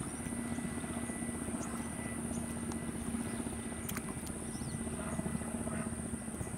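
A steady low motor hum with a constant faint high-pitched whine above it, over a rough low rumble; a single sharp click about four seconds in.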